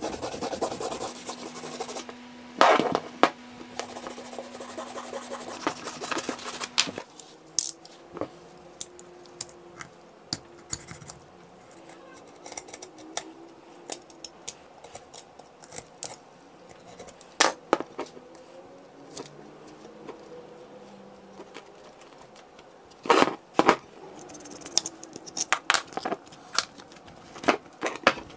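Steel wire brush scrubbing a rusty axe head in rapid strokes. About seven seconds in, a knife takes over, cutting through the cord wrapped on the wooden handle with scattered sharp snaps and scratches.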